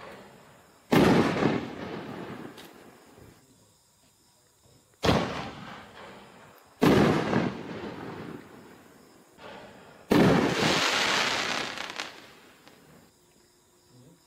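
Raccoon Fireworks RWB 5-inch canister shells firing: four sharp booms, about 1, 5, 7 and 10 seconds in, each trailing off in a long echo. The last boom has a longer, brighter tail.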